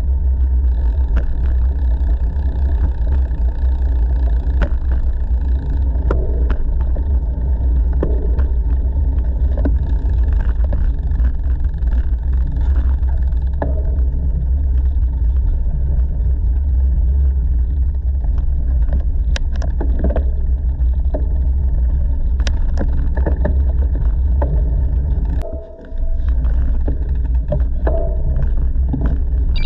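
Wind buffeting a GoPro's microphone while cycling, a steady loud low rumble, with scattered clicks and rattles from the bike rolling over the path. The rumble drops out for a moment near the end.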